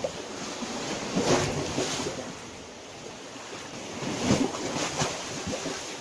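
Small waves of a calm sea lapping and washing on the shore, with a few louder washes about a second in and again after four seconds.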